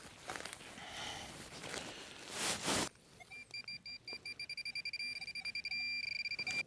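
Rustling and scraping for about three seconds, then a handheld pinpointer beeping: high beeps that come faster and faster and run together into a steady tone near the end, the pinpointer closing in on a buried metal target.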